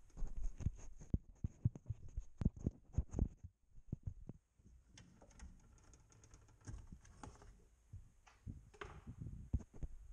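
A rubber intake boot being worked loose and pulled off its pipe by hand. There is a quick run of knocks and thuds for the first three seconds or so, then scattered bumps.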